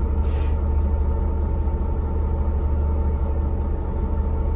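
MAN D2866 six-cylinder diesel of a Van Hool newA360 city bus running at a steady drone, heard from inside the bus. A brief hiss comes in the first half-second.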